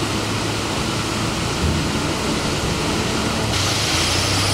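Heavy rain pouring down in a steady hiss. About three and a half seconds in the hiss turns brighter as cars drive along the wet road.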